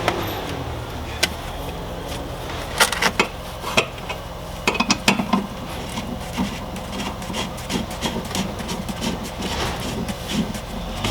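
Irregular clicks, knocks and rubbing as a seat bolt is handled and screwed loosely down into the seat bracket through a cardboard template on the cab floor, with the busiest run of knocks a few seconds in.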